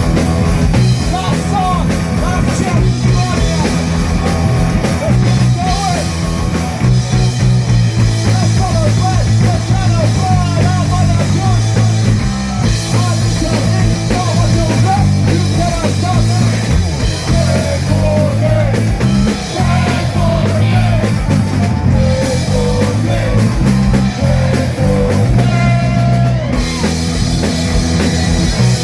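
Live rock band playing loudly, with a steady drum and bass groove and a wavering melodic line on top.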